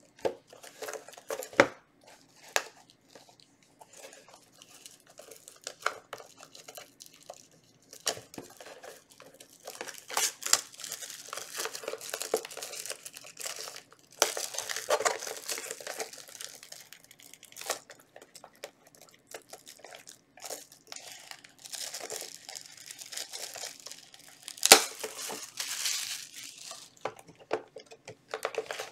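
Packaging being torn open and crinkled: the plastic wrap and foil booster packs of a Yu-Gi-Oh card display box being ripped and handled. The crinkling comes in bursts, with scattered sharp clicks and one louder snap about three-quarters of the way through.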